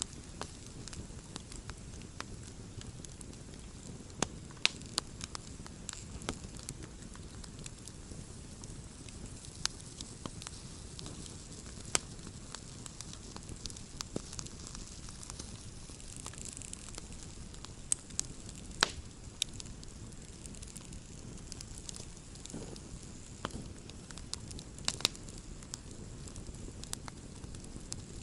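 Wood campfire burning: a steady low rumble of flames with irregular sharp crackles and pops, a few louder snaps scattered through.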